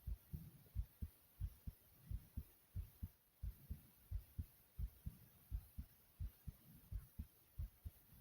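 Fast heartbeat: low, steady lub-dub thumps in even pairs, a few thumps a second.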